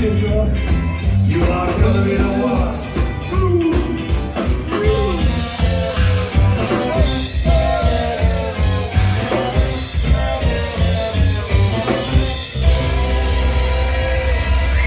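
Upbeat band music with singing over drums and bass guitar, a steady driving beat.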